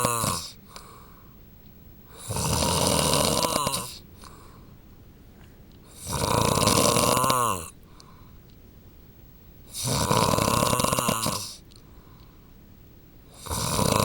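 A man snoring in his sleep, with rough snores of about a second and a half each, coming steadily about every four seconds. Each snore drops in pitch as it ends.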